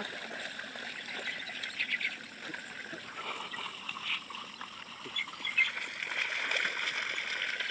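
Rural outdoor ambience beside a flooded paddy field: a steady hiss with faint trickling water and a few short, faint chirps.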